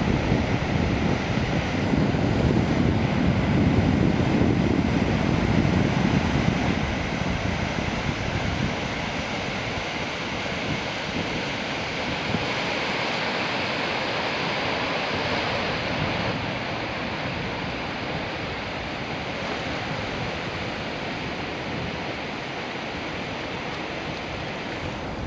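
The Severn Bore tidal wave surging upriver: a steady rush of breaking, churning water. For the first several seconds wind buffets the microphone.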